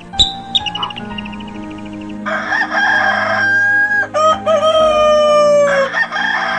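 A long, drawn-out animal call in two parts, the second part gliding slowly down in pitch, over background music. A short high chirp comes just before it, near the start.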